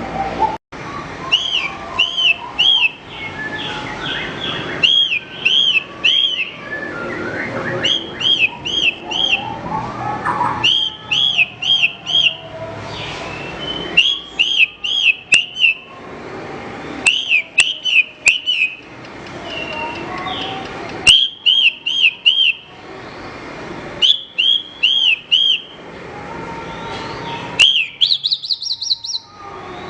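Branjangan (Horsfield's bush lark) singing: repeated short phrases of four or five quick arched whistled notes, a phrase every second or two, with softer twittering between them. Near the end comes a fast rising run of notes.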